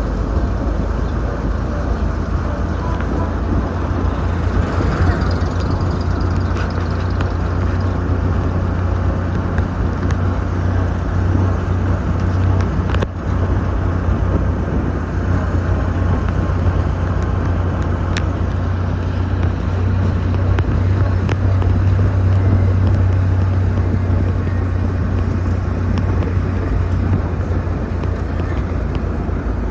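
A car under way, its engine running steadily with a constant low hum, mixed with wind and road noise.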